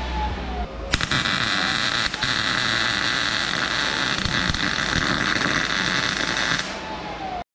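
MIG welder arc crackling steadily on thin car-body sheet metal during seam welding of the chassis underside, restarting with a sharp pop about a second in, another pop near two seconds, and stopping shortly before the end. The pops and spatter come from contamination in the seams being burned through.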